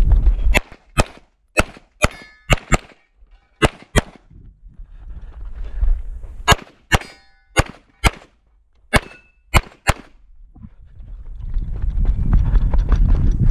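Rapid pistol fire from a 9mm major Open-division race pistol: about seventeen sharp cracks in pairs and short strings, with brief pauses between groups. A few shots are followed by a short metallic ring. A low rumble fills the gaps at the start and near the end.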